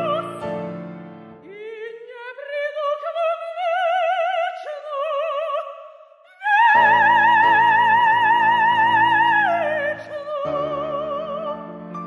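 Mezzo-soprano singing an operatic aria in Russian with wide vibrato. The voice first climbs alone without piano, then the piano comes back in under a loud high note held about three seconds, which falls to a lower note near the end while the piano plays on.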